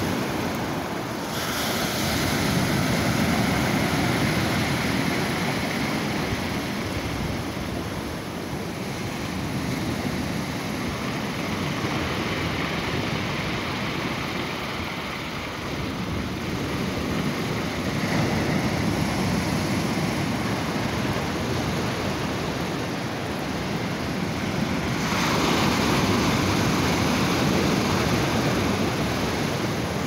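Rough sea surf: waves breaking and washing up a pebble beach, a continuous rush that swells and eases every few seconds.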